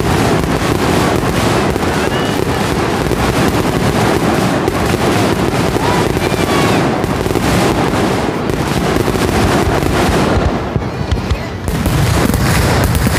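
Fireworks display: a dense, continuous barrage of aerial shell bursts and crackle. It thins briefly near the end, then picks up again.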